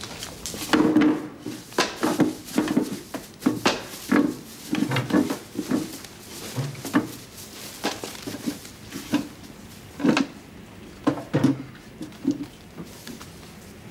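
Irregular wooden knocks and clatter, roughly one or two a second, of footsteps and of chairs and drinking glasses being moved about on wooden tables and floor.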